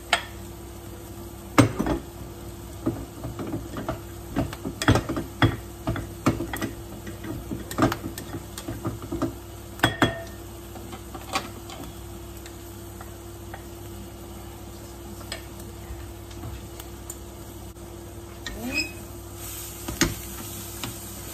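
Spoon and rice-cooker pot knocking and clinking as leftover rice is scraped out into a wok, a run of sharp knocks over the first dozen seconds, then a spatula scraping through the rice in the wok near the end. A steady low hum runs underneath.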